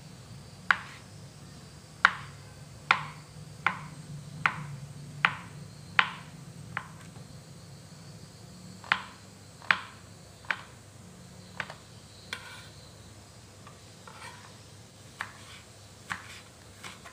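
Kitchen knife chopping a block of tempeh into small pieces on a plastic cutting board, with a sharp knock on the board at each cut, roughly one a second. The knocks pause for about two seconds midway, and the later ones are fainter.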